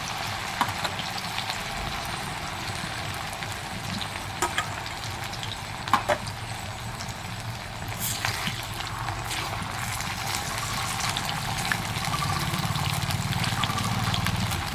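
Cornflour-coated bitter gourd slices deep-frying in hot soybean oil in a metal kadai, a steady sizzle throughout. A few sharp clinks come from the metal spatula against the pan as the slices are turned.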